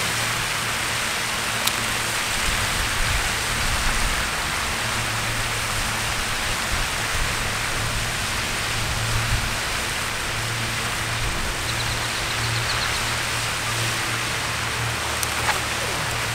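Steady splashing hiss of pond spray fountains throwing water, over a low steady hum.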